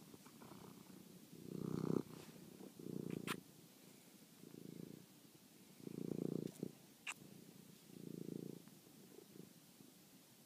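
Domestic cat purring in low pulses about half a second long, coming every one to two seconds, with two short sharp clicks about three and seven seconds in.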